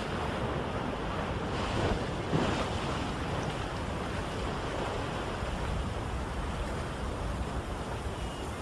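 Ocean waves washing on a shore with wind, a steady rushing noise.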